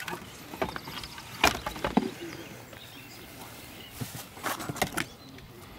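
Cardboard firework tubes and their cardboard box being handled: a few sharp knocks and rustles, the loudest about a second and a half in, with another cluster about a second before the end.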